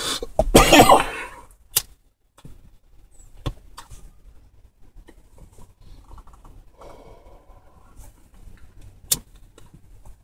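A man smoking a bowl from a small pipe: a loud rush of breath at the start, then soft inhaling and exhaling of smoke, with a few sharp clicks, the loudest near the end.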